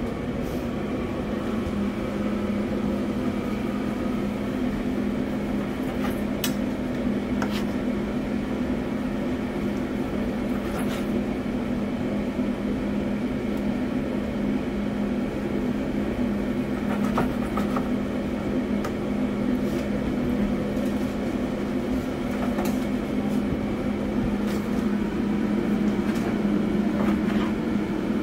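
A steady low mechanical hum of running kitchen equipment, with a few scattered faint taps of a knife on the cutting board as the brisket is sliced.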